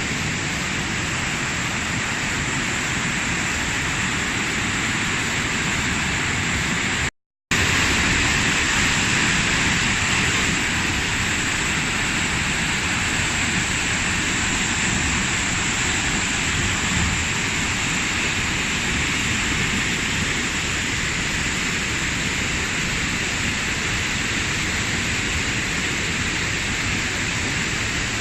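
Waterfall rushing steadily. About seven seconds in the sound cuts out for a moment, then resumes slightly louder.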